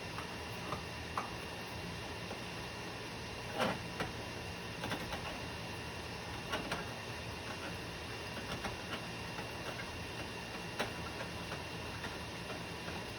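Scattered light clicks and knocks of kitchen items being handled, the strongest about three and a half seconds in, over a steady background hiss and hum.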